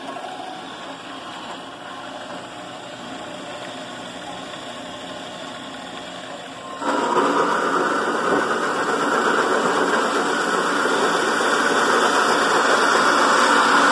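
Metal-cutting band saw running and sawing through aluminum gutter stock. About seven seconds in the sound jumps much louder as the blade bites into the aluminum, and it stays loud and slowly grows through the cut.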